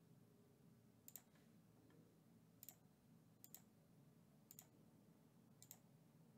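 Faint computer mouse clicks, five of them about a second apart, most heard as a quick double tick, over quiet room tone.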